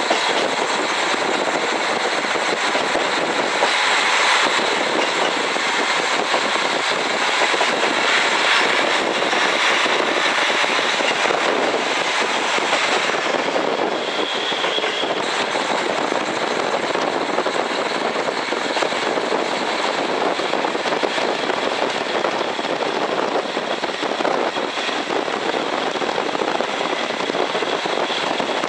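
JNR KiHa 40 diesel railcar running, heard from inside the car: a steady drone of engine and wheels on rail. It swells about four seconds in and eases off around thirteen seconds.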